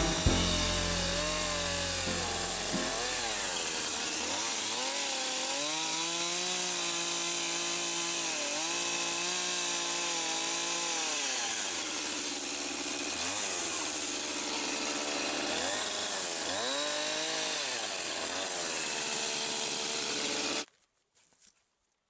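Two-stroke chainsaw cutting down into a spruce log, its engine pitch repeatedly sagging and picking back up as the bar bites into the wood. It cuts off suddenly near the end.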